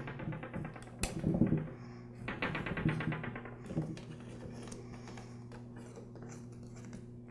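Hex key turning out the valve plate screws on an air compressor pump head: two bursts of rapid metallic clicking, with a few single ticks around them.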